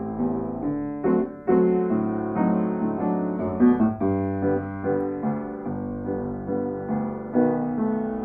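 Piano music: chords and melody notes struck in a steady, unhurried succession.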